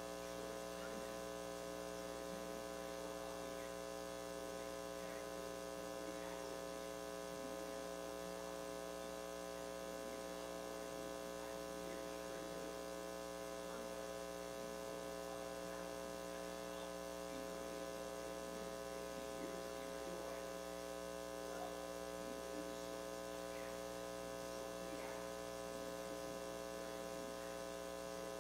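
Steady electrical mains hum and buzz, a stack of many unchanging tones.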